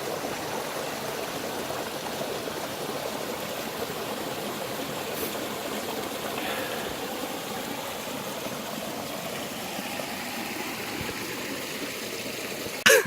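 Steady rushing of running water, an even hiss without pauses, cut off sharply at the end.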